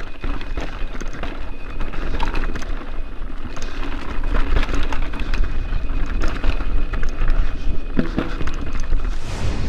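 Mountain bike riding down a rocky trail, heard through a handlebar-mounted camera: tyres rolling over loose stones, the bike rattling and knocking over rocks, and wind rushing on the microphone. Near the end a rising whoosh sets in.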